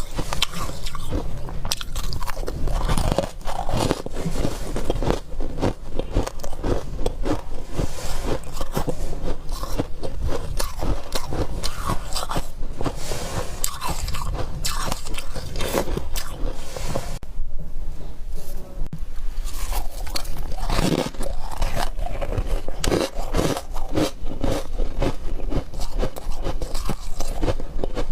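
Close-up biting and chewing of frost ice chunks: continuous crunching with squeaky, crackling bites. There is a short lull a little past halfway.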